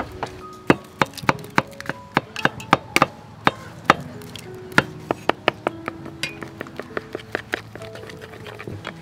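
Chopsticks clicking irregularly against the side of a bowl as they beat a flour batter with a duck egg, over background music of held notes.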